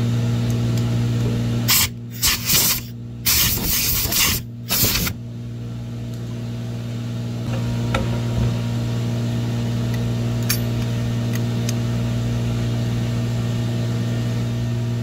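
Milling machine running with a steady low hum. About two seconds in come five or six short, loud hissing blasts over some three seconds, compressed air blowing the aluminium drilling chips off the heat sink block.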